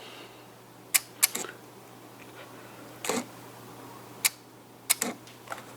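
Sharp, irregular clicks and taps of small plastic and metal parts as an old turn signal switch is handled and taken apart, about seven in all, over a faint steady low hum.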